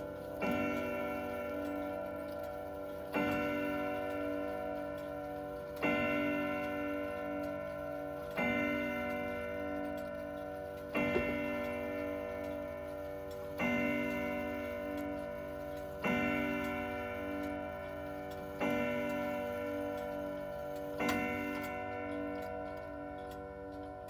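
Grandfather clock's Urgos UW32002 movement striking the hour on gong rods mounted on a solid beech wood base: nine even strokes about two and a half seconds apart, each one ringing on and fading slowly before the next.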